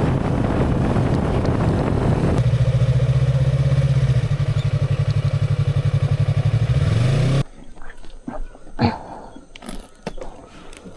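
Motorcycle engine running on the move, at first mixed with rushing noise, then settling into a steady engine note. The note rises briefly just before it cuts off suddenly about seven seconds in. After that come only faint knocks and rustle.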